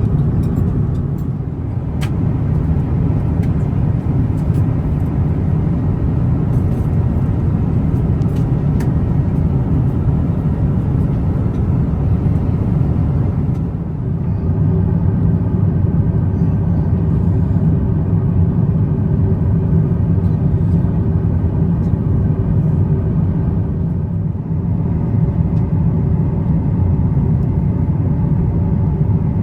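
Steady low rumble of cabin noise inside an Airbus A350-900 in flight, the engines and airflow over the fuselage heard from a passenger seat.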